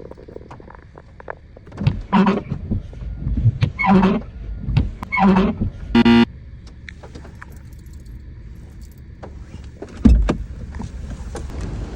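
Car windscreen wiper blades squeaking and juddering across the glass, three strokes about a second and a half apart, each a buzzing squeal. A short sharper tone follows soon after, and a dull thump comes near the end.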